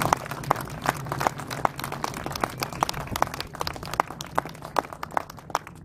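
Small crowd applauding, many scattered hand claps that thin out towards the end.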